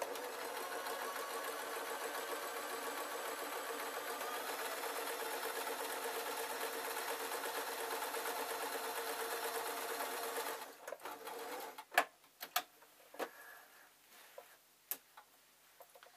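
Electric sewing machine running steadily as it stitches a dart in lightweight fabric, stopping after about ten seconds. A few separate sharp clicks follow.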